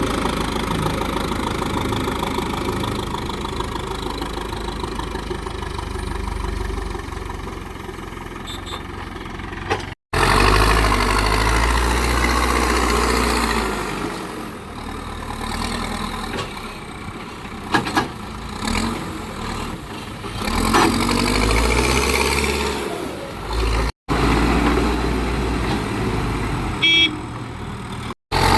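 Diesel engines of a backhoe loader and tractors running, with the engine note changing abruptly at several edits. There are a few sharp knocks around the middle and a brief high-pitched beep near the end.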